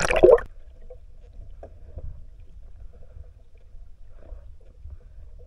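A brief splash at the very start as the camera goes under the sea, then the muffled underwater sound picked up by the submerged camera: a low rumble with faint scattered knocks.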